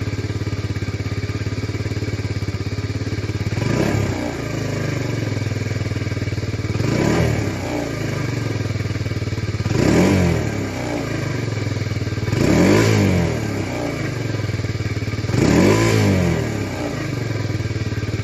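Kawasaki Z125 Pro's 125 cc single-cylinder four-stroke engine through its stock exhaust, idling steadily and blipped five times, each rev rising and dropping straight back to idle.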